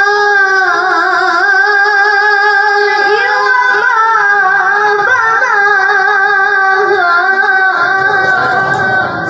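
A single high voice singing one long, drawn-out melodic note, with small ornamental turns in the middle, tailing off near the end.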